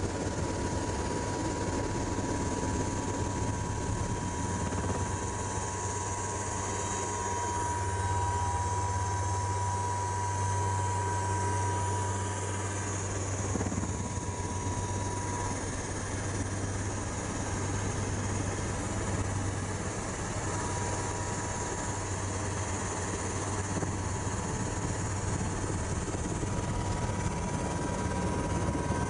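Helicopter running in flight, heard from inside the cockpit: a steady low drone of the rotor with a thin, steady turbine whine above it.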